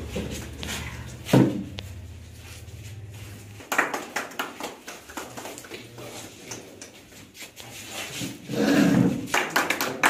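Room noise from a small group of people moving about: a steady low hum that stops about four seconds in, one sharp knock about a second and a half in, then scattered clicks and rustles.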